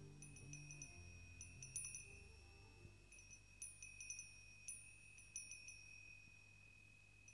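Faint end of a soundtrack: low sustained music notes fade out over the first three seconds, while wind chimes ring on in irregular, scattered strikes.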